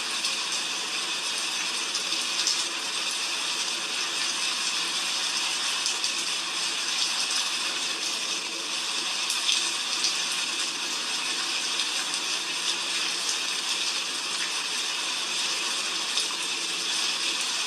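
Heavy rain falling steadily: a dense, even hiss with scattered ticks of drops.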